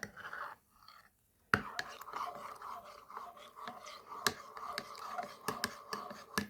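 Spoon stirring a hot chocolate bomb melting into hot milk in a mug. It scrapes and clinks against the sides with irregular sharp clinks, starting about a second and a half in.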